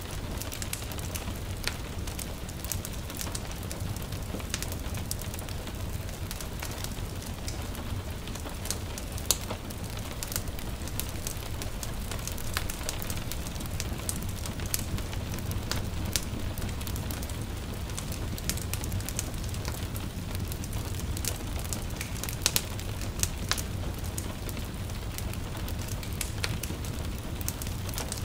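Wood fire crackling, with frequent irregular sharp pops over a steady low rumble, mixed with the soft, even hiss of light rain.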